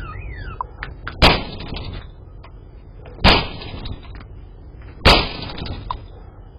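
Three loud, sharp bangs about two seconds apart, each with a short ringing tail. A repeating falling electronic alarm tone is heard in the first second.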